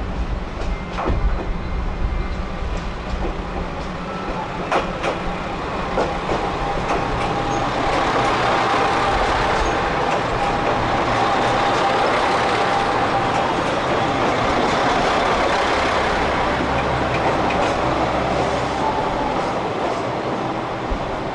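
JR Shikoku 2000 series diesel train pulling into the platform: a few sharp wheel clacks over the rail joints at first, then the running noise of the diesel cars swells as they pass close by, with a steady high whine for several seconds in the middle.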